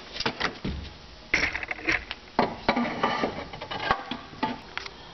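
Irregular metal clicks and knocks, in clusters, as the parking gear and output assembly of a GM 440-T4 automatic transmission is worked into the transmission case, its gear teeth and parts knocking as they line up.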